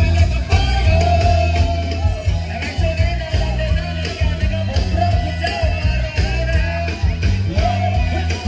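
Loud band music: a deep bass line stepping between notes and steady drums with cymbal strokes under a held, wavering lead melody.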